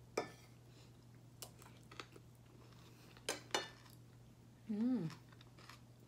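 Eating from a dish: about five sharp clinks of cutlery on the dish, spread out, and a short hummed 'mmm' of enjoyment about five seconds in.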